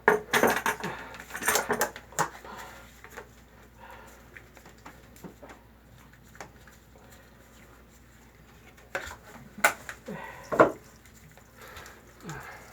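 Metal hose clamps and tools being handled: bursts of clinks and clatter in the first couple of seconds and again near the end, the loudest clank about two seconds before the end, with scattered small ticks between.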